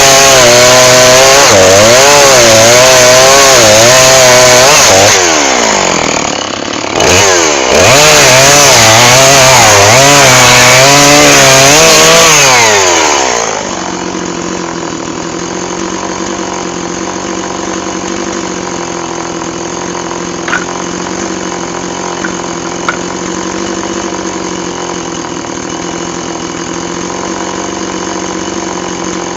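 Two-stroke chainsaw running at high revs, its pitch wavering as if under load in wood, with a brief dip in revs about six seconds in. About thirteen seconds in, the revs fall away and the saw settles into a steady idle, with a few light ticks.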